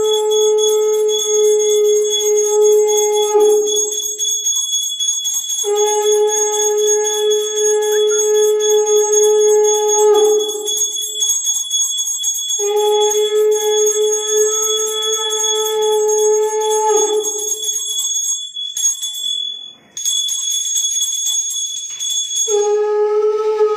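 Conch shell (shankha) blown in long held blasts, each about four seconds, the pitch sagging as each blast ends: one ends early on, two full blasts follow, and a fourth starts near the end. Under them a hand bell rings continuously, stopping briefly about two-thirds of the way through.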